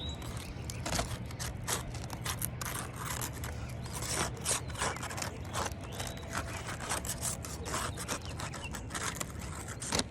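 Flat scraper blade scraping and prying under roof shingles to release them from the surrounding shingles, a run of short, irregular scrapes.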